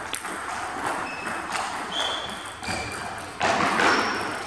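Table tennis balls clicking on tables and bats in a scatter of light clicks and short high pings, with a louder stretch of rustling noise about three and a half seconds in.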